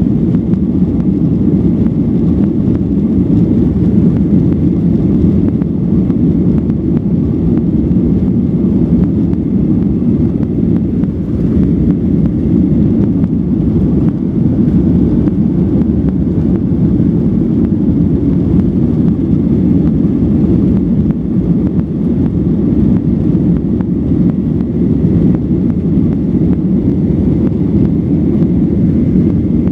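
Steady engine and airflow noise of a Boeing 737-900 airliner during its departure from Orlando, heard from inside the passenger cabin: a constant low rushing drone with no clear pitch.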